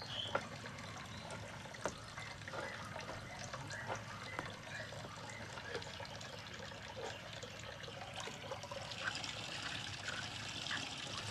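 Water trickling and sloshing as chicken feet are handled in a pot of water, with scattered small clicks and knife taps. The water grows a little louder near the end.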